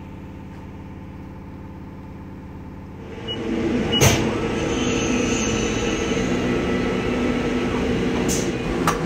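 Faint steady hum for about three seconds, then a Haas VF4 CNC vertical mill with a 4th-axis rotary table running: a louder steady machine hum with several steady tones, and one sharp click about a second after it starts.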